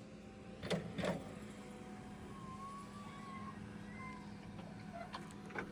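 A vehicle or machine engine running steadily, with two sharp knocks about a second in and another near the end.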